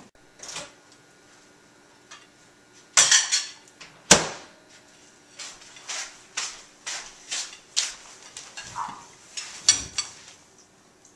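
Soup bowls and spoons clinking and knocking: scattered sharp clinks, one loud knock about four seconds in, then a run of spoons tapping against bowls during eating.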